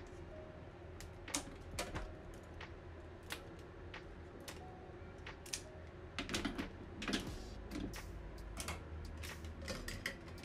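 Kitchen scissors snipping the leg tips off a steamed, chilled flower crab: scattered sharp clicks and crunches of brittle shell, with a brief cluster of louder knocks and crunches about six to seven seconds in as the crab is handled on a plastic cutting board.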